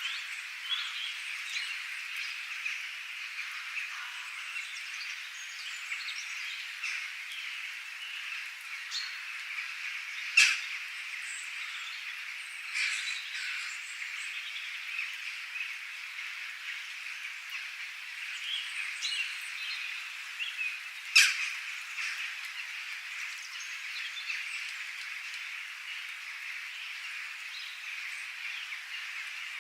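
Nature ambience: a dense, steady high-pitched chorus of small calling animals, with scattered bird chirps over it. Two sharp, loud clicks stand out, about ten and twenty-one seconds in.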